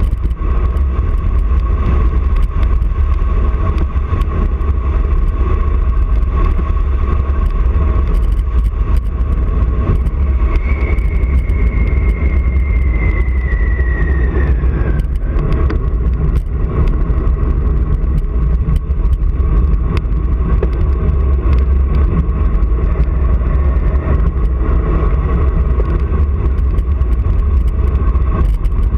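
Wind buffeting the microphone of a bike-mounted action camera on a road-bike descent: a steady, loud low rumble with scattered small knocks from the road. A faint whine falls in pitch for a few seconds near the middle.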